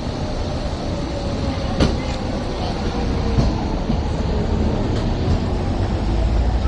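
Hong Kong Peak Tram fifth-generation car, a cable-hauled funicular, running past on its rails: a low rumble that grows toward the end, a couple of sharp wheel clicks, and a thin whine falling slowly in pitch.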